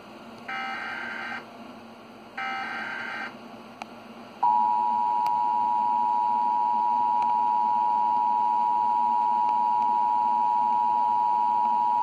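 Emergency Alert System tones from a television: two short bursts of the SAME digital header, about two seconds apart. About four and a half seconds in, the loud, steady two-tone EAS attention signal (853 and 960 Hz) begins. Together they mark the start of a new alert, here a severe thunderstorm warning.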